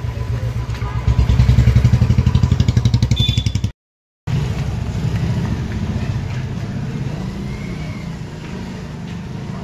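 A motor vehicle's engine running close by with a rapid pulsing beat, loudest from about one to three and a half seconds in. The sound cuts out briefly just before four seconds, then a steadier, quieter engine rumble goes on.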